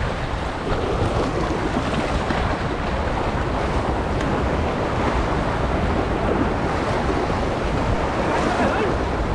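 Steady rush of fast-flowing water released through a dam's opened sluice gates.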